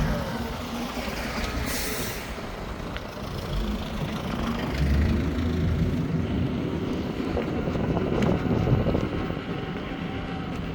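Steady road and wind noise while riding an Inmotion V12 electric unicycle along a road, swelling louder about halfway through and again near the end.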